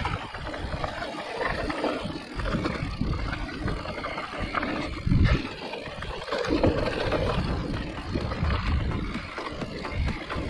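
E-mountain bike rolling down a gravel trail: tyres crunching over loose gravel and the bike rattling, with uneven wind rumble on the microphone.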